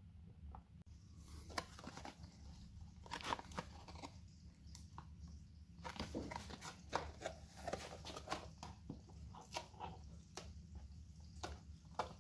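A small cardboard box and its paper packing handled by hand: irregular crinkling, rustling and light clicks, over a faint steady low hum.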